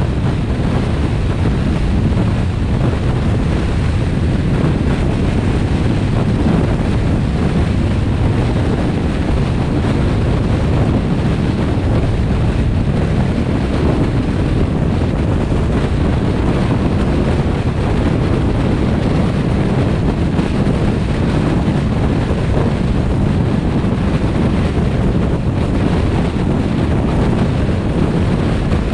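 Steady road and wind noise from a car driving along a highway, a constant low rush with wind buffeting the microphone.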